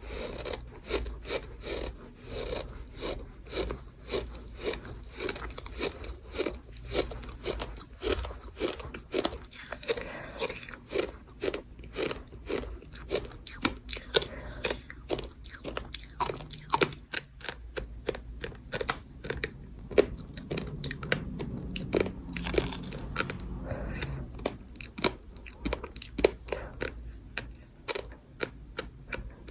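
Close-up crunching of gritty bird sand being chewed, sharp grainy crunches about twice a second, with one louder crunch about two-thirds of the way through.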